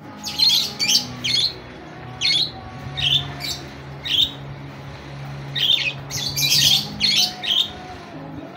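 Budgerigars squawking: about a dozen short, harsh chirping calls in twos and threes, busiest around six to seven seconds in, the kind of budgie chatter used to call out a rival. A steady low hum runs underneath.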